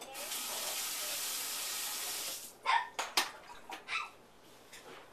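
A steady hissing rush for about two and a half seconds that stops abruptly, followed by a handful of short knocks and clatters.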